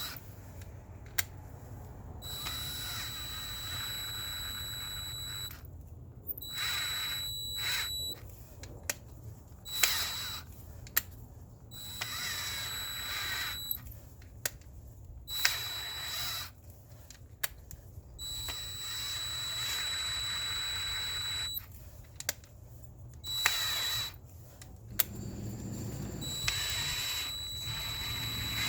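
Power drill motor whining in about eight short bursts of one to three seconds, stopping and starting, with sharp clicks between bursts, as it works in the stripped 6 mm manifold bolt holes of a VW Tiguan engine block for a thread repair.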